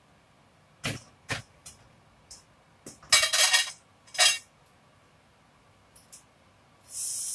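Metal pots, pans and utensils knocking and clinking on a gas hob as cookware is moved about: a few single knocks, then a quick run of clinks about three seconds in and another a second later. Near the end a loud steady hiss starts.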